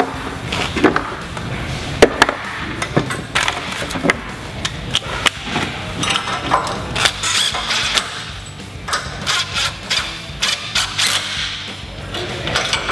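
Cordless impact driver tightening the nuts on a U-bolt that clamps a drop mount to a sprayer boom, with sharp metallic clicks and knocks from the bracket and hardware.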